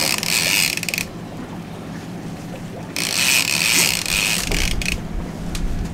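Conventional fishing reel being cranked hard against a big hooked fish: the reel's gears whir with fine rapid clicking in two spells, one at the very start and one from about three to five seconds in.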